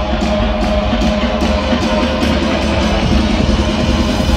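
Loud music with a fast, steady beat.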